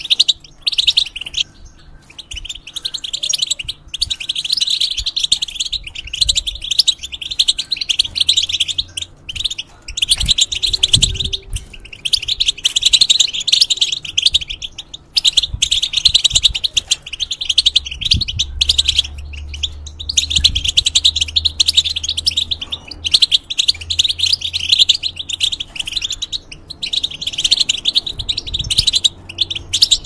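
European goldfinch singing: long runs of rapid, high twittering notes, broken every few seconds by short pauses.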